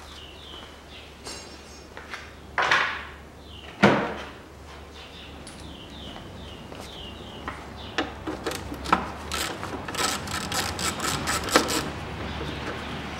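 Metal clicking and clatter of hand tools as the bolts of the engine's upper timing-belt cover are worked loose with a hex key. Two louder scraping swishes come a few seconds in, then a quick run of sharp clicks in the second half.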